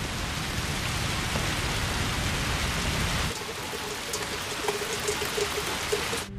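Steady heavy rain falling and splashing on pavement. About three seconds in, the deep rumble under it drops away, leaving a lighter hiss of rain.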